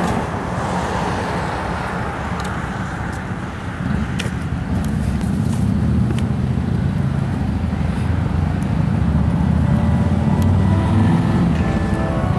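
Steady low outdoor rumble with a few faint clicks. Soft music comes in faintly near the end.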